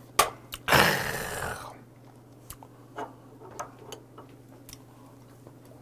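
Two sharp clicks, then a man's loud breathy exhale about a second in. Quiet chewing follows, with scattered light clicks of wooden chopsticks against a small sauce dish.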